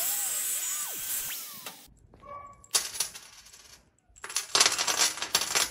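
Angle grinder cutting galvanized steel square tube, with a whine that dips and rises, cutting off abruptly about two seconds in. Then steel bolts, nuts and washers jingle and clatter in two bursts as they are handled and dropped onto the table, the second longer and louder.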